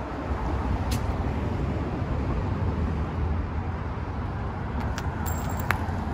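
City street traffic: a steady low rumble of passing cars, with a couple of sharp clicks and a brief high squeak about five seconds in.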